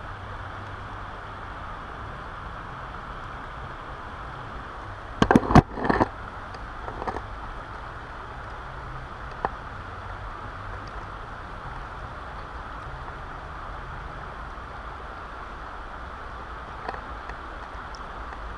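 Steady rush of flowing river water at the bank, with a brief cluster of loud sharp splashes and knocks about five seconds in.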